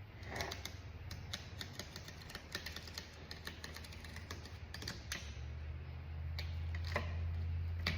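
Irregular sharp clicks and ticks of a blade cutting and picking out the old stitching on a steering wheel cover, over a low steady hum that grows louder for the last two or three seconds.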